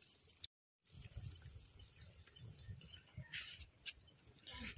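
Hot cooking oil sizzling faintly and crackling in an iron kadai over a wood fire, with a brief gap of silence about half a second in.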